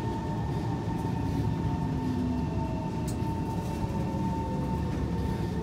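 Kawasaki C151 metro train heard from inside the car as it slows into a station: a steady low running rumble with a whine that falls slowly in pitch as the train decelerates.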